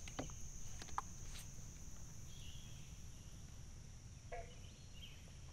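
Steady high-pitched drone of summer insects, with a few faint clicks in the first second and a half.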